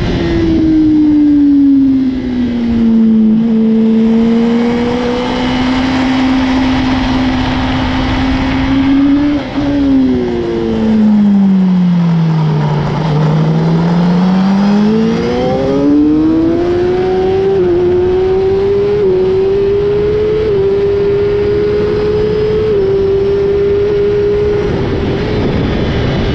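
2016 Kawasaki ZX-10R's inline-four engine at racing speed: the revs fall as it brakes for corners, drop lowest a little past the middle, then climb hard again with several quick gear changes in the second half. A steady rush of wind runs under it.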